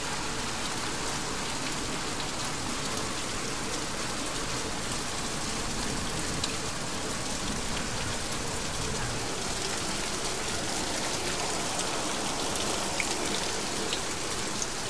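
Steady rain falling on corrugated metal roofs: an even hiss with a few faint ticks.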